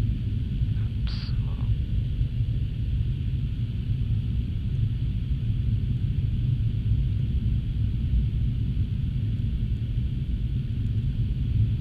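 Steady low rumble of engine and airflow noise on the flight deck of an Embraer regional jet, with a short high tone about a second in.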